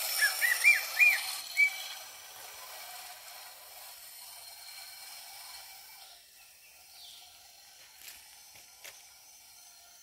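A bird gives a quick run of short, arched chirps over the first two seconds, then fades to faint forest background with a couple of soft clicks.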